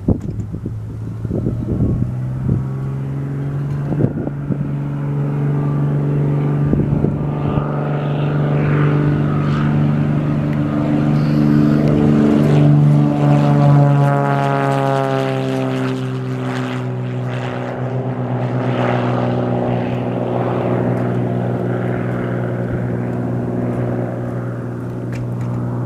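A Piper PA-32R-300 Cherokee Lance's six-cylinder Lycoming engine and propeller at full take-off power. It grows louder as the plane rolls closer, drops in pitch as it passes about halfway through, then drones steadily and slowly fades as it climbs away. A few thumps come in the first few seconds.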